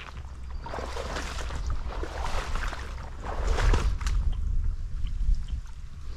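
Wind rumbling on the microphone, with three swells of swishing and splashing as a crawfish lift net on a long pole is pushed and lifted through shallow, weedy marsh water.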